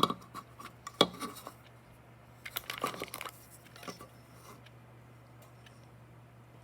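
Handling noises of a small object: a few sharp clicks and knocks about a second apart, with a short burst of rattling and rustling in the middle.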